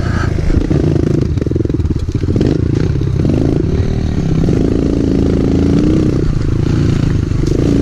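Dirt bike engine running under way, heard from the rider's own bike, its pitch rising and falling as the throttle is worked over the middle of the stretch.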